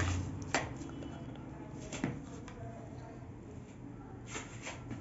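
A steel spoon stirring chopped, juicy citrus pieces in a plastic bowl: a handful of scattered clicks and scrapes of the spoon against the bowl, with a low hum at the very start.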